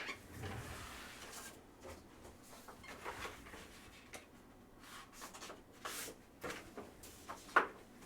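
Trading cards and their plastic holders or packaging being handled on a table: faint rustling and small clicks, with one sharper click near the end.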